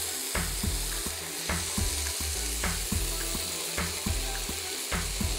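Bacon lardons sizzling in their own rendered fat in a nonstick frying pan, stirred with a wooden spoon. Sliced onion is tipped into the pan about four seconds in.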